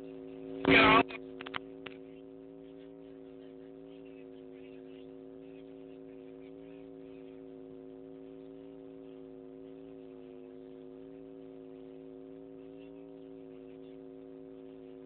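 Steady electrical hum, several even tones held without change, typical of mains hum in the broadcast's audio chain. A brief loud voice burst comes about a second in, followed by a few clicks.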